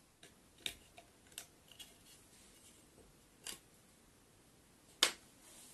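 Sharp clicks and snips of a small hand tool worked at an electric scooter's front wheel and fork, about six in all, the loudest about five seconds in.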